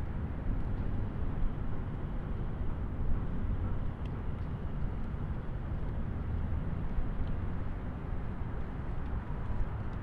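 Steady, low-heavy rush of water falling from a wide waterfall, even throughout with no music or voice.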